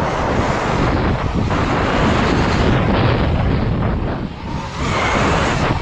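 An electric KTM Freeride dirt bike ridden on a dirt track: wind buffets the action camera's microphone over rumble from the bike on the ground, with no engine note. The noise eases briefly about four seconds in.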